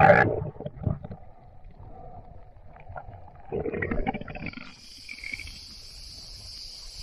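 Muffled water sounds from an action camera held under the sea, with a loud knock right at the start and another muffled burst about four seconds in. Near the end the camera breaks the surface and a high hiss of splashing water comes in.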